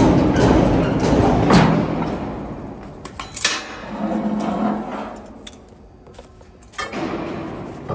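Metal parts of a twin-screw extruder knocking and clanking as they are handled at the gearbox, with background music fading out over the first couple of seconds.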